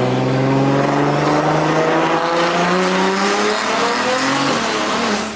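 Single-turbo BMW N54 inline-six accelerating hard under full boost, revs climbing steadily through a gear, then falling sharply about four and a half seconds in as the driver shifts or lifts. It is a pull to test a boost controller raised to 40% duty cycle, about 17–18 PSI.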